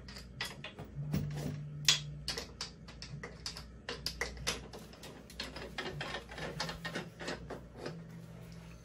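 Rapid, irregular clicking and tapping of a folding exercise bike's seat-post height-adjustment knob and metal post as the seat height is being adjusted.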